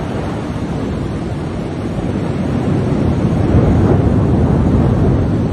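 Heavy rain and gusting wind in a thunderstorm, the wind buffeting the microphone: a steady rushing noise that grows louder about two and a half seconds in.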